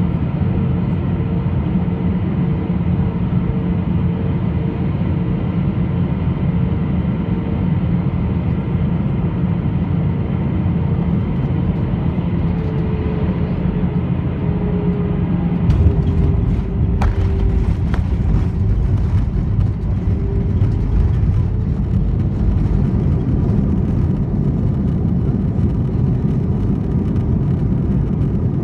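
Cabin noise inside an Airbus A320-214 on landing: a steady rumble of engines and airflow with a faint pulsing hum. About sixteen seconds in comes a sudden jolt, then heavier rumble and rattling as the wheels touch down and roll along the runway.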